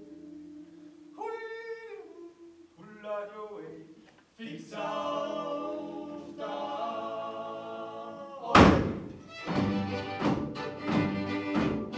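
Men's voices holding long, steady chords without instruments; about eight and a half seconds in, two fiddles, a button accordion and a double bass come in together on a loud first chord and play a folk tune with a steady beat.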